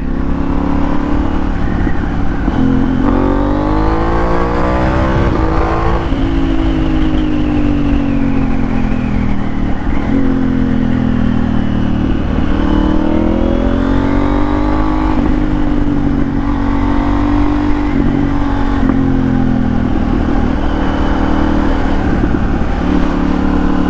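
A sport motorcycle's engine ridden through traffic, its note climbing and falling several times as the throttle is opened and closed and gears are changed, over a steady rush of wind on the microphone.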